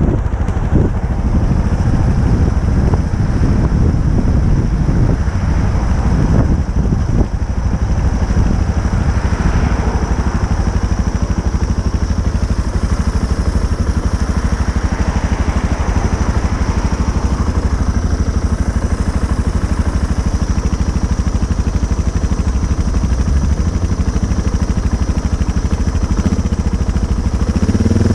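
Motorcycle engine running steadily, with some clattering in the first few seconds.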